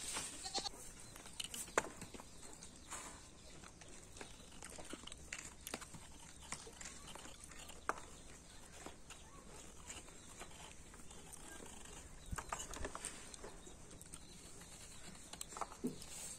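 Knife shaving the skin and ridges off a luffa gourd: irregular light clicks and scrapes over a faint steady high hiss.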